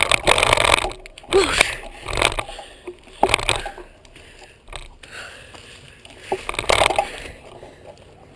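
Ride noise picked up by a camera in a bicycle mount: irregular bursts of rumbling and rattling, about five loud ones, with quieter stretches between.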